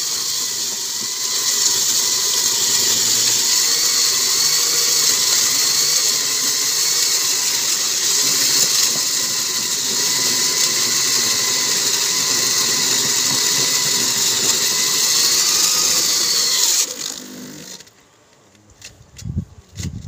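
Handheld electric wet core drill running steadily under load, its water-fed core bit grinding into a concrete slab. About seventeen seconds in the motor is switched off and winds down within a second, followed by a few short knocks.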